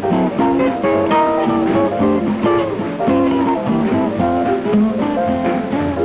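Swing-era jazz band playing, led by an archtop guitar taking a solo in a quick run of separate plucked notes.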